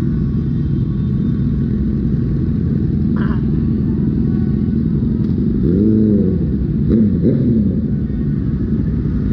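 Dense motorbike traffic, many small engines running together in a steady rumble, with engines revving up and back down about six and seven seconds in.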